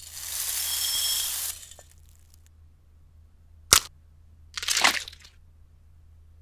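A soft pouring hiss for about a second and a half as flour goes into a bowl. Then comes one sharp crack of an egg shell, and about a second later a short spill as the egg's contents drop into the bowl.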